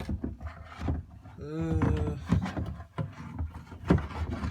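Knocks and clatter of parts being handled, with a short hummed vocal sound about a second and a half in.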